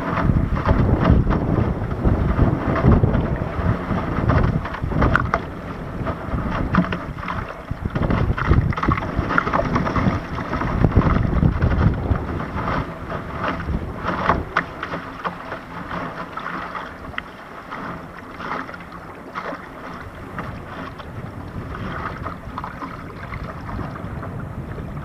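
Water rushing and slapping against the hull of an RS Aero sailing dinghy moving fast through chop, with wind buffeting the microphone. The rush and wind grow quieter about halfway through as the boat slows.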